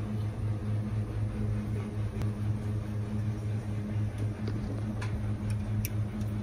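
Steady low mechanical hum with a few light metallic clicks of coins being handled, the sharpest near the end as a coin goes into a water vending machine's coin slot.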